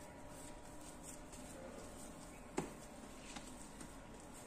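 Faint hand-handling of a soft ball of risen pizza dough as it is lifted out of a plastic bowl and rounded between the palms, with one short knock about two and a half seconds in and a couple of fainter ticks after it.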